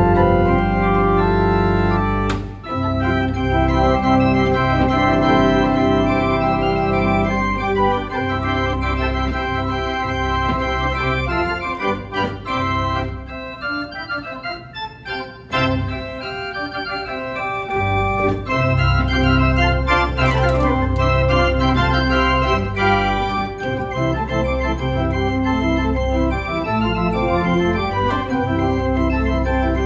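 11-rank Rieger pipe organ playing full sustained chords over a heavy pedal bass. It breaks off briefly near the start, thins to a quieter, lighter passage in the middle, then returns to the full sound.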